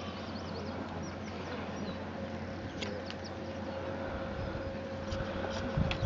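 Hand blade shears clipping a sheep's fleece, with a few sharp snips, over a steady low hum and small birds chirping.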